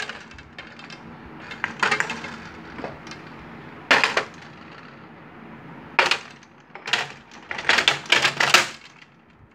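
Glass jars and a ceramic pot being set down one after another on a metal cake pan: irregular knocks and clinks a second or two apart, with a quick run of clinks near the end.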